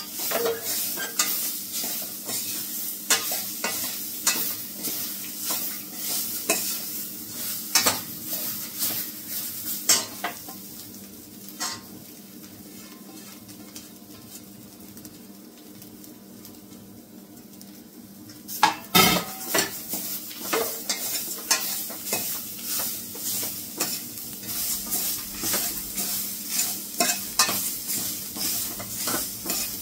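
Metal spoon stirring and scraping grated coconut and whole spices in a stainless steel pot over a raised gas flame, with a light sizzle of coconut oil underneath: the roasting stage where the coconut is browned for the masala. The stirring stops for several seconds about a third of the way in, leaving only the sizzle, and starts again after a sharp clank about two-thirds through.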